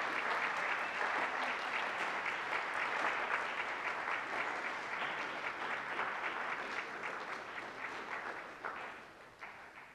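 Audience applauding: dense, steady clapping that thins out and dies away in the last two seconds.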